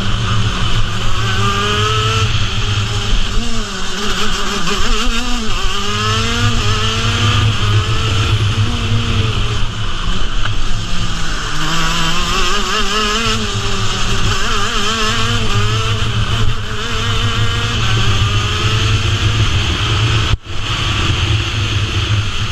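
KZ2 shifter kart's 125cc two-stroke single-cylinder engine at racing pace, its revs climbing and dropping again and again through the lap, heard from the driver's helmet. A momentary dropout near the end.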